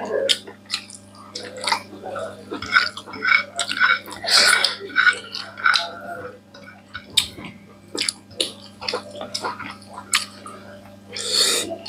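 Close-miked eating sounds: wet chewing, lip smacks and small clicks as people eat rice and curry with their hands, irregular and scattered. A steady low hum runs underneath.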